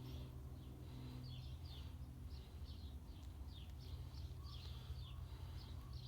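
Songbirds chirping, a quick run of short, high, falling notes, over a faint steady low hum.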